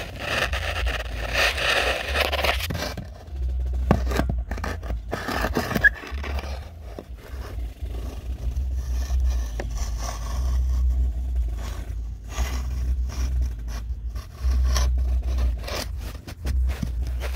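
Chimney inspection camera scraping and knocking against the inside of a flue as it is pushed along, over a steady low rumble. The scraping is loudest in the first few seconds; after that there are scattered knocks and rubs.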